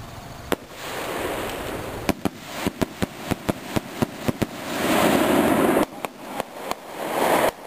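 Firework rocket bursting high overhead with one sharp bang, followed by a run of about a dozen sharp pops over a couple of seconds and a few more later. A loud rushing noise swells up in the middle.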